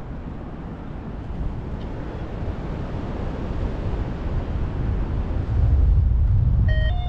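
Wind buffeting the microphone in flight: a steady low rumbling rush that grows louder about six seconds in.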